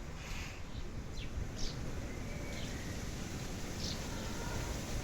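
Wild birds chirping in short, separate calls about once a second, over a low steady rumble.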